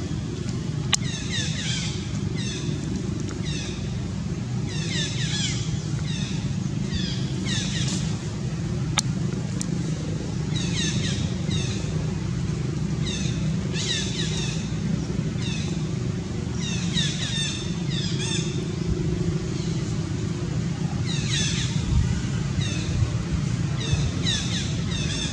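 Steady low engine rumble of passing motor traffic, with clusters of short, high, falling chirps recurring every second or two.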